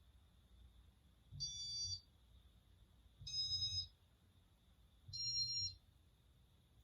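Three electronic beeps from a Casablanca Inteli-Touch ceiling fan control, each about half a second long and spaced roughly two seconds apart. The beeps confirm button presses, such as speed or light changes.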